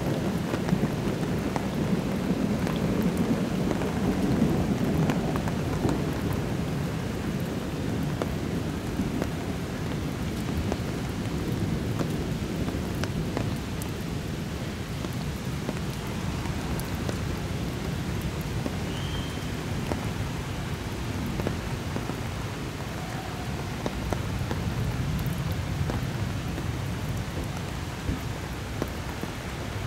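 Night thunderstorm: steady heavy rain falling, with thunder rolling in long low rumbles, loudest over the first few seconds and again near the end.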